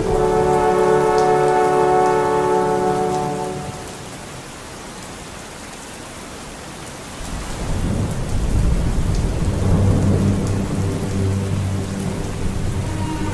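A held musical chord fades out over the first few seconds, leaving steady heavy rain. About seven seconds in, a long rolling thunder rumble builds and goes on under the rain, and notes of music start again near the end.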